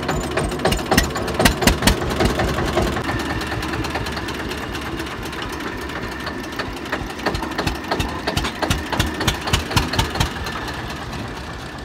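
Single-cylinder diesel engine of a 1989 Eicher Good Earth 25 hp tractor running with a rapid, even knocking beat. The beat is louder in the first two seconds and again from about seven seconds in.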